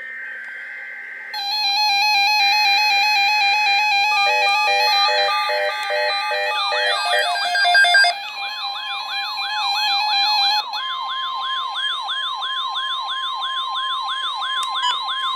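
Several NOAA weather radios and alert receivers going off at once for a tornado watch. It opens with the screechy SAME data bursts and a layer of steady electronic alarm tones and beeps. From about halfway through, a fast warbling siren alert, about three sweeps a second, runs over a steady alert tone.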